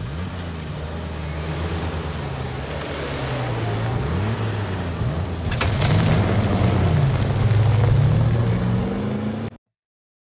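Tow truck engine running and revving, its pitch rising and falling and growing louder, with a sharp knock about six seconds in; the sound cuts off suddenly near the end.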